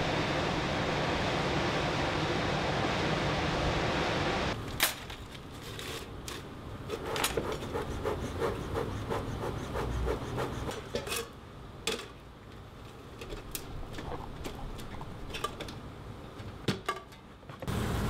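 A steady rushing noise for the first four seconds or so, then it cuts to rubbing, scraping and sharp clicks of wood as a beekeeper works wooden beehive frames, with a quick run of repeated scraping strokes in the middle.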